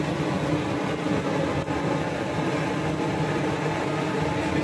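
Steady low mechanical hum and rumble with a faint click about 1.7 s in.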